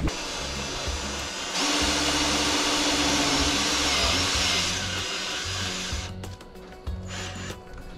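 Cordless drill/driver driving a self-tapping sheet metal screw through the plastic tote wall into the steel pipe of the cage. The motor runs in one long burst, speeding up with a steady whine about a second and a half in and slowing near five seconds before stopping around six seconds. Background music plays underneath.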